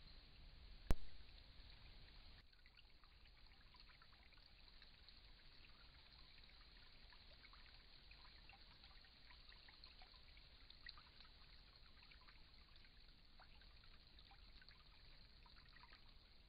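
Faint hiss from a trail camera's built-in microphone, dotted with many small scattered ticks. One sharp click comes about a second in.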